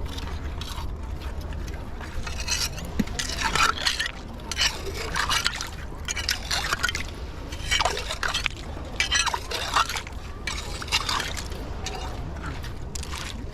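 Clam digging in wet tidal-flat mud: irregular scraping and wet squelching and splashing as the mud is raked over, with occasional clinks of shells.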